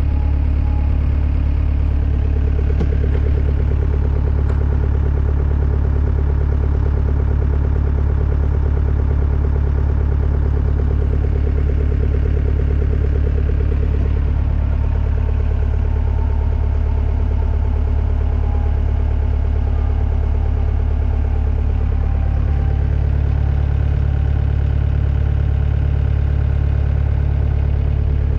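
Takeuchi TL130 skid steer's diesel engine idling steadily with a deep, even hum. Its tone shifts slightly for several seconds around the middle.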